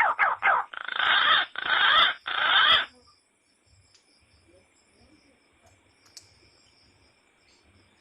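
A chicken squawking harshly: a quick run of short calls, then three longer squawks over the first three seconds, after which it falls nearly quiet.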